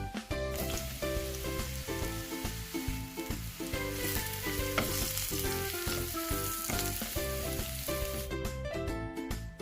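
Food sizzling as it fries in hot oil in a pan, a steady hiss that starts about half a second in and cuts off about a second before the end.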